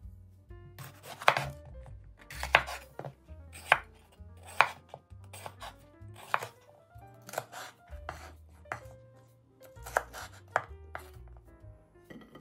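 Kitchen knife chopping a red bell pepper on a wooden cutting board: sharp knocks of the blade against the board, about one a second at an uneven pace.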